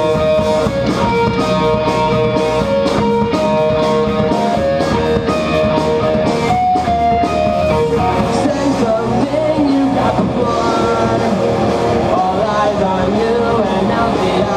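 Live rock band playing: electric guitars holding long sustained melody notes over a steady drum beat.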